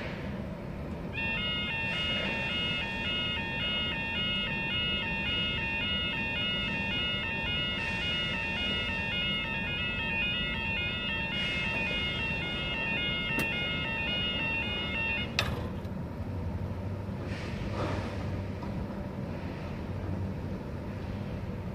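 UK level crossing yodel alarm sounding in a fast, repeating warble while the crossing lights show and the barriers lower. It starts about a second in and cuts off about fifteen seconds in with a sharp click.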